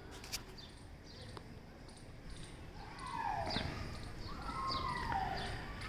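Birds calling: two falling calls, each about half a second long, about halfway through, over faint high chirps repeating at an even pace.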